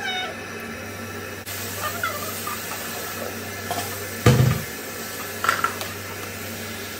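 Marinated chicken sizzling in a hot frying pan while a spatula stirs it, over a steady low hum. There is a single dull thump about four seconds in.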